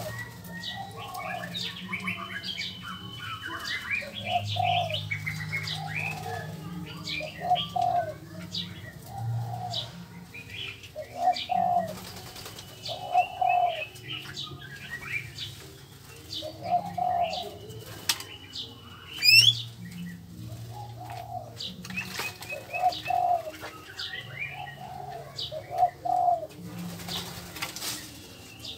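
Birds in an aviary calling. Short, low hooting notes repeat roughly once a second over a low cooing, with scattered higher chirps. A single sharp rising whistle comes about two-thirds of the way through.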